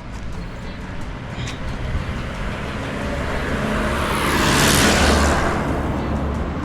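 A motor vehicle driving past on the street, its tyre and engine noise swelling to a peak about two-thirds of the way through and then fading, over a steady low traffic rumble.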